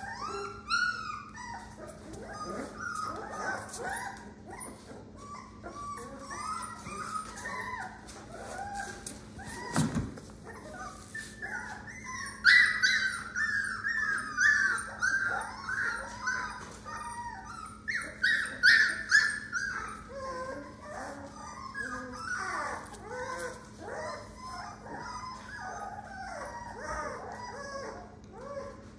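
Month-old American Pit Bull Terrier puppies whimpering and yelping in rapid strings of short, high cries, loudest past the middle. A single knock comes about ten seconds in, over a faint steady hum.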